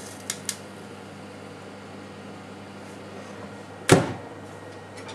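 Door of a Sharp Healsio AX-HC2 steam oven shut with one heavy thud about four seconds in, preceded near the start by two light clicks.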